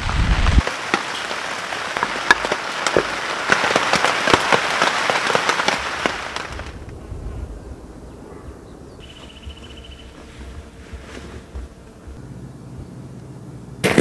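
Heavy rain pattering on a silnylon hexa tarp, dense with sharp individual drop hits, which stops abruptly about six and a half seconds in, leaving only a faint quiet outdoor background.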